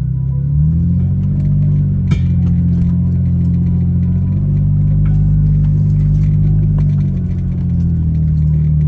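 Jeep Wrangler's engine running as it drives on soft beach sand with its tyres let down, a low steady drone whose pitch shifts up and down a few times, with light scattered clicks and rattles.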